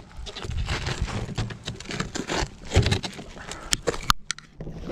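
Footsteps scuffing and crunching on a steep dirt slope as a person clambers over loose ground, with irregular knocks and scrapes and a couple of sharp clicks near the end.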